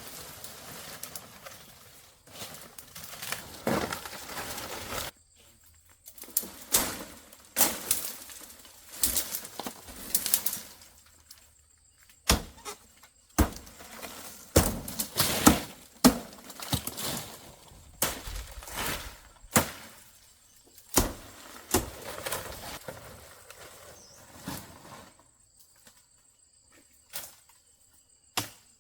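Repeated rustling and knocking as materials are handled, in uneven bursts with short pauses, dying away near the end.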